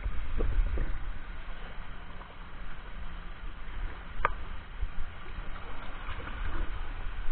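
Pool water splashing and sloshing around a wading child, over a low rumble on the microphone that is strongest in the first second.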